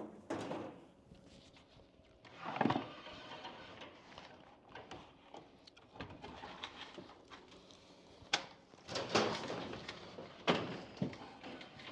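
Intermittent scraping and rustling as a wire fish tape and taped cable are pushed and worked through a drywall cavity, in several short strokes.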